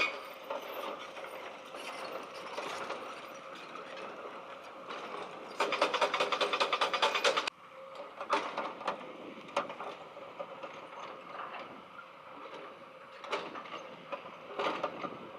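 Mechanical clicking and rattling, with a dense, rapid ratcheting rattle for about two seconds near the middle.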